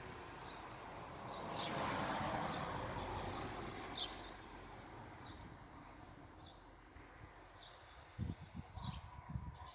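Small birds chirping now and then in short, high calls, over a rush of noise that swells about two seconds in and slowly fades. A few low thumps come near the end.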